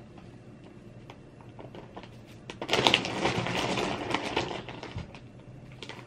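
Rustling and crackling of plastic being handled, loudest for about two seconds midway, with scattered light clicks before and after.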